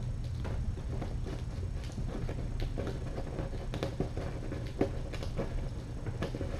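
Kittens scampering and wrestling on a hard floor: irregular light patter and taps of small paws, over a steady low hum.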